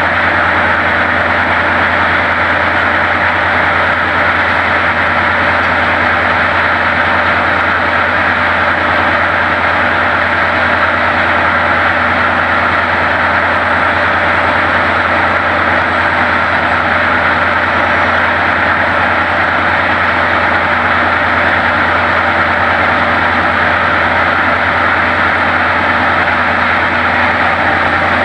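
Class 55 Deltic locomotive's Napier Deltic two-stroke opposed-piston diesel idling steadily while the locomotive stands, with only one of its two engines running. The deep hum and hissing drone stay even throughout.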